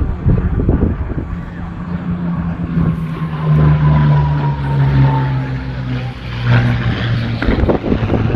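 Propeller-driven light aircraft flying past, its engine note dropping slowly in pitch as it goes by, loudest about midway. Wind buffets the microphone near the end.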